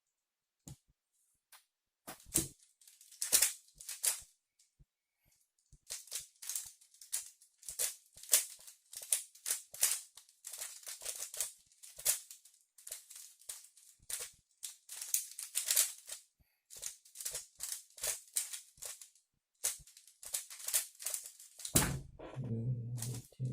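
A 3x3 Rubik's-style speedcube being turned fast by hand during a timed solve: a dense run of plastic clicks and clacks for about twenty seconds. Near the end the clicking stops and a low, steady tone with overtones begins.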